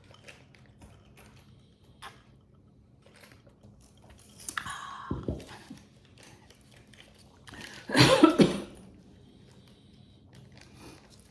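Light handling noises of boxes and items on a table, small clicks and rustles, with two short louder bursts about four and a half and eight seconds in, the second the loudest.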